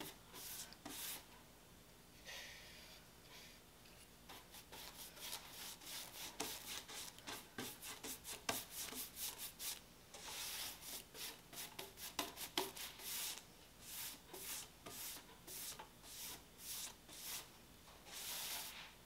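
A 2-inch angled palm paintbrush brushing water-based primer onto a wooden tabletop: quiet, repeated swishing strokes. They come sparsely at first and then in quick succession, about two a second.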